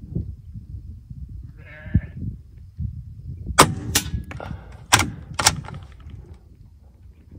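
Wind rumbling on the microphone, with a short bleating call about two seconds in. Four sharp cracks follow between about three and a half and five and a half seconds in, the loudest sounds here.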